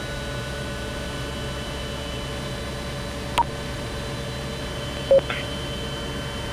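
Helicopter turbine engine running at ground idle after start, a steady hum with faint steady tones. A sharp click about three and a half seconds in and a short beep just after five seconds.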